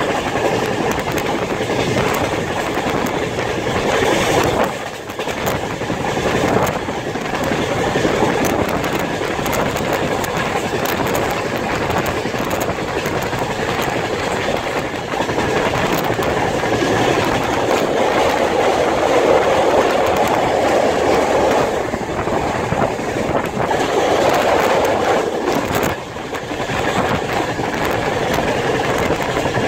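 Passenger train running at speed, heard from inside a coach: a steady rumble of wheels on rails with fine rapid clatter. It eases briefly about five seconds in and again near the end.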